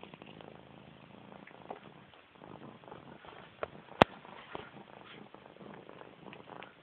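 Domestic cat purring right at the phone's microphone, with one sharp knock about four seconds in as the cat bumps the phone.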